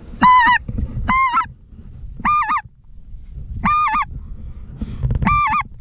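Five short, high, yodeling speckle-belly (greater white-fronted goose) calls, about a second apart, each a quick warbling 'wah-wah'.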